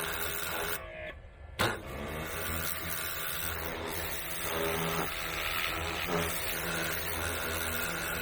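Pressure washer running, its spray hissing from a rotating tip as it blasts caked grease off the loader's grease fittings. About a second in the spray stops briefly, then comes back on with a sharp click.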